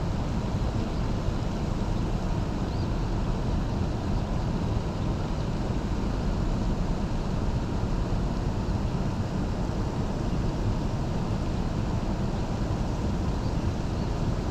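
Steady rushing of water pouring out below a dam into the tailwater, an even noise that holds one level throughout.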